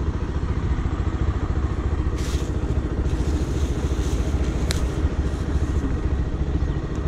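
Motorcycle engine idling steadily, a fast even low beat. A plastic bag crinkles briefly about two seconds in, and a sharp click sounds near the fifth second.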